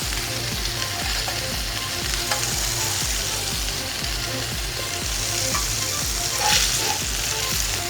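King fish fillets sizzling in oil on a flat iron tawa, with short metal spatula scrapes as the pieces are lifted. The loudest scrape comes about six and a half seconds in.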